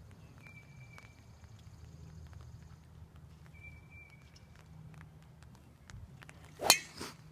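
A driver striking a golf ball off the tee: one sharp, loud crack about six and a half seconds in, after a few quiet seconds of the golfer setting up.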